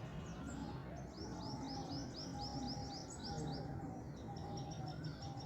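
A bird chirping in quick runs of short, high notes, about six a second. One run starts about a second in and a second follows near the end, over a steady low background rumble.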